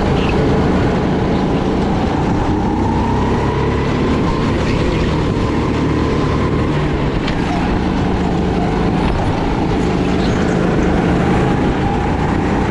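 Jet ski engine running steadily at speed, its whine drifting gently up and down in pitch.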